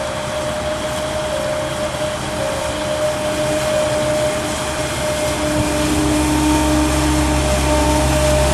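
Hydraulic-drive weed-mowing boat's engine running steadily with a steady high whine over it; about halfway through, its low rumble grows stronger and a little louder.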